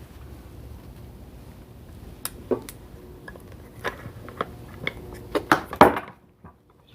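Sharp, irregular metallic clicks and taps of a hand tool setting rivets through the armrest cover, the loudest near the end; the sound cuts off abruptly about six seconds in.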